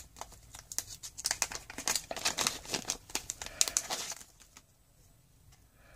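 Thin clear plastic zip-top bag crinkling and rustling as hands handle it with a coin inside, in quick irregular crackles that stop about four seconds in.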